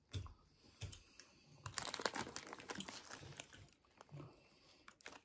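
Plastic sweet packet crinkling and rustling as gummy sweets are tipped out into a hand, faint, with scattered small clicks, busiest around two to three seconds in.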